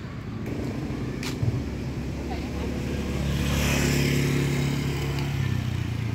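A motor vehicle's engine running as it passes, growing louder to a peak about four seconds in and then fading, with tyre hiss at the loudest point. A single sharp click comes a little over a second in.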